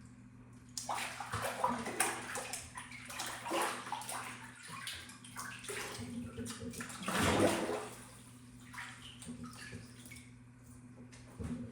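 Water sloshed and splashed in a small tub, recorded as water foley. The splashes come irregularly, the loudest about seven seconds in, then thin out to a few smaller splashes. The tub's reflections make it sound small.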